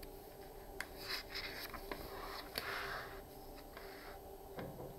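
A page of a picture book being turned by hand: soft paper rustling with a few light clicks, mostly in the first three seconds, and a soft thump near the end.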